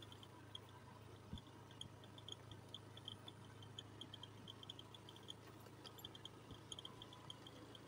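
Near silence: faint outdoor ambience with a quick, high ticking chirp repeating in short clusters over a low steady hum.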